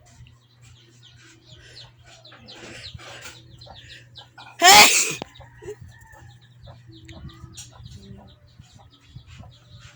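A single loud human sneeze about halfway through, lasting about half a second. Chickens cluck faintly in the background.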